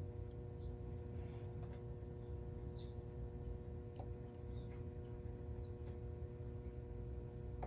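Low steady background hum with scattered faint, short high-pitched chirps and a couple of light ticks.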